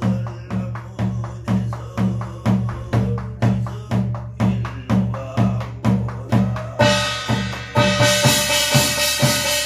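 Korean barrel drum (buk) beaten with a stick in a steady beat, about two strokes a second. About seven seconds in, a bright metallic ringing joins the drumming and carries on with it.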